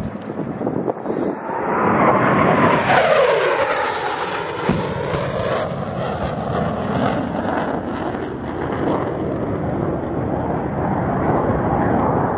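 Two jet aircraft making a low, fast pass, their noise swelling and gliding down in pitch as they go by. A sharp bang comes about four and a half seconds in as a wall-of-fire pyrotechnic charge detonates, and the noise carries on as a steady rumble.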